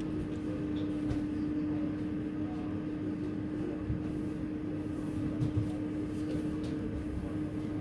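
Rear-loading garbage truck running with a steady hum that cuts off right at the end, over a low rumble, with a few knocks as trash is thrown into the hopper.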